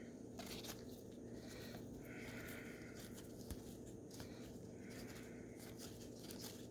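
Faint rustling and sliding of cardboard basketball trading cards being flipped through by hand, with a few light ticks, over a steady low hum.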